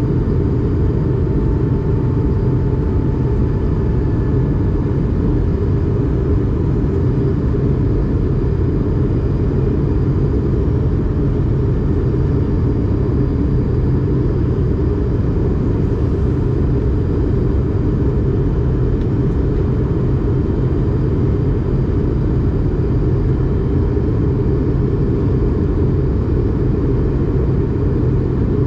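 Airbus A220-300 cabin noise from a window seat: a steady, loud, low rumble of the Pratt & Whitney PW1500G turbofans and airflow. It holds level with no change.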